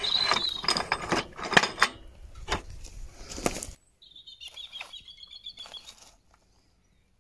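Parts and tools being handled: a quick series of clicks and knocks that stops abruptly just under four seconds in. Then faint bird chirping.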